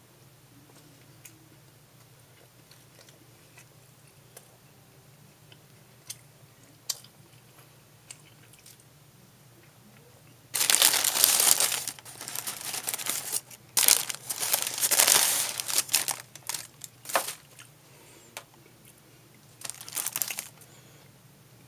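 Paper sandwich wrapper crinkling and rustling as the sandwich is handled and unwrapped. It starts about halfway in, runs in loud bursts for several seconds, and comes back briefly near the end after a quiet first half.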